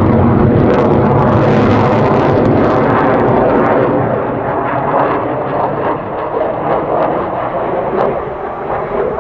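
Jet aircraft engine roar, loud at first and fading somewhat from about four seconds in, as the jets pull away.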